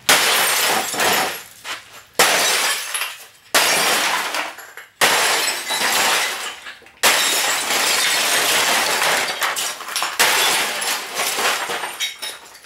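A Philips Magnavox television being smashed apart: a series of about six heavy blows, each followed by a shower of breaking, shattering glass.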